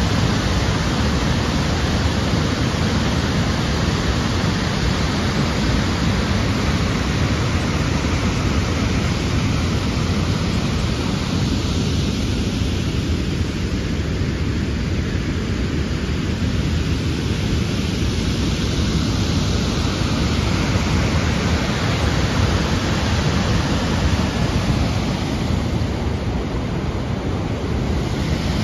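Steady rushing of Tahquamenon Falls, a broad river pouring over a waterfall and churning below it, heavy in the low range. It turns somewhat duller for a few seconds midway, then fuller again.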